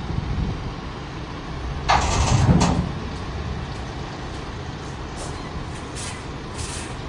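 Heavy MAN truck crane's diesel engine running low, with a loud hiss of air from its air brakes about two seconds in, then a few fainter short hisses near the end.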